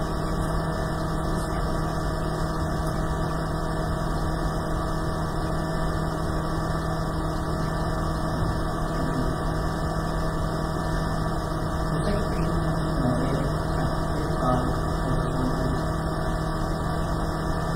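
Steady droning hum with hiss, holding a few fixed tones at an even level throughout.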